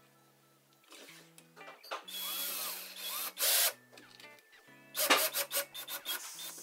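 Cordless drill driving screws into a wall. It runs steadily for about a second and a half from about two seconds in, gives a louder short burst just after, then a run of sharp clicks about five seconds in.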